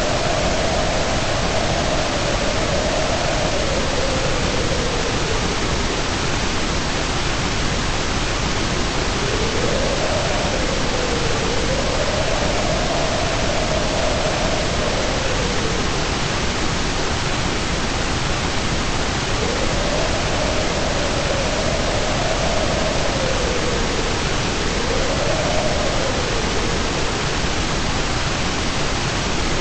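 Steady white noise, an even hiss, with a faint tone underneath that slowly wavers up and down in pitch.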